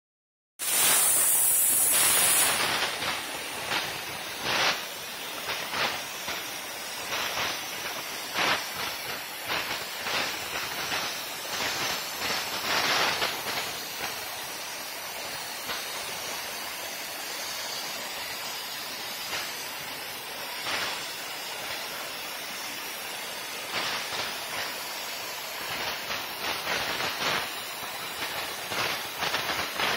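Plasma cutting torch on a portable CNC gantry cutting steel plate: a steady hiss of the arc and air jet with frequent irregular crackles. It starts about half a second in and is loudest for the first two seconds.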